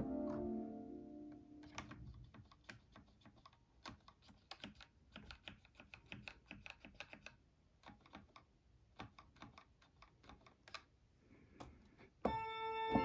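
A virtual pipe organ chord dies away through studio monitors. Then comes a long, uneven series of clicks as stop buttons on a MIDI stop controller are pressed one after another to draw stops. About twelve seconds in, a loud full organ chord sounds with many stops drawn.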